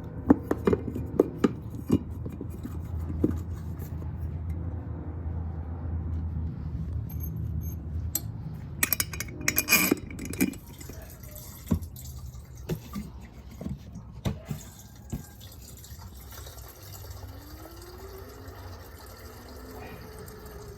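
Scattered clicks and knocks of parts and tools being handled, with a dense cluster about halfway through, then liquid being poured into a container near the end, its pitch rising as it fills.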